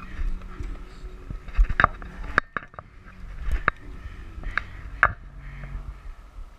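Marching cymbals clinking and knocking as they are carried, short metal clicks without ringing, over low rumbling handling noise from the camera mounted on them.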